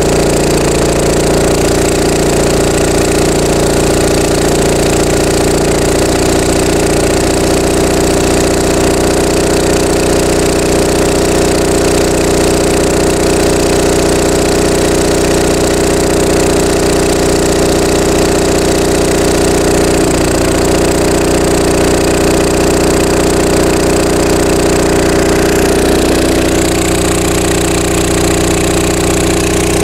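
Onan MDJE two-cylinder diesel generator set running steadily at rated speed, set to 60 hertz. Its tone shifts slightly near the end.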